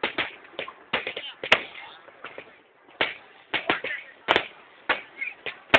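Fireworks shells bursting in a rapid, irregular series of sharp bangs, with a pause of about a second near the middle.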